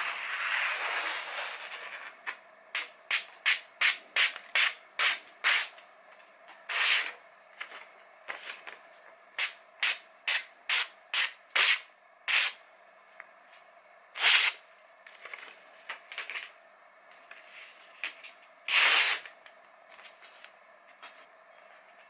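Kitchen knife slicing through glossy catalogue paper in a paper-cutting sharpness test. One long slice comes first, then quick runs of short slicing swishes, about three a second, with pauses between.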